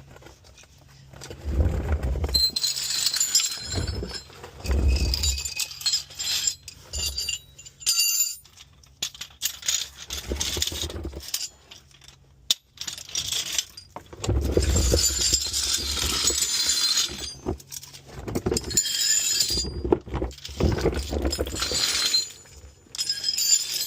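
Metal hand tools clinking and rattling as they are handled, in repeated bursts with dull thumps between them.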